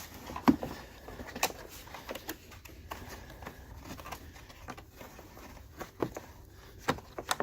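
Scattered light clicks and knocks of hands handling plastic parts and plugging in park sensor connectors at the back of a Volvo XC90's bumper.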